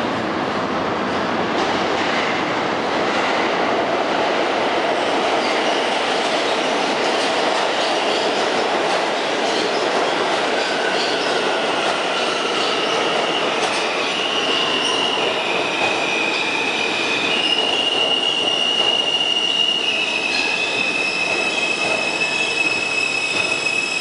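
An R160A subway train running through the station with a loud, steady rumble of wheels on rail. From about halfway in, high steady squealing tones join the rumble and step from one pitch to another.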